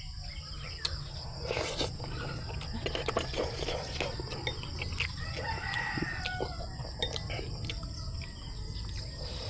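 A rooster crowing about five seconds in, over a steady high insect drone, with small clinks of a metal spoon against a bowl.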